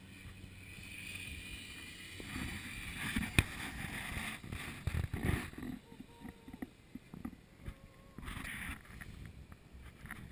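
ATV engine running at low speed with rough rumbling from wind on the microphone, broken by a single sharp knock about three seconds in; quieter and more scattered for the second half.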